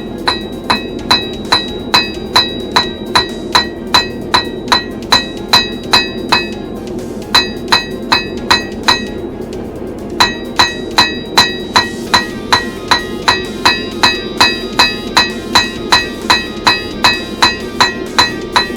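Blacksmith's hammer striking hot steel on an anvil in a steady rhythm of about two or three blows a second, each blow ringing with the anvil's bright tink. The hammering breaks off briefly twice, about six seconds in and again about nine seconds in, then resumes.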